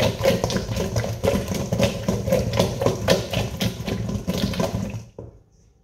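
Wet, freshly salted peeled potatoes tossed in a stainless steel bowl, a dense run of knocks as they tumble against the metal and each other, stopping about five seconds in.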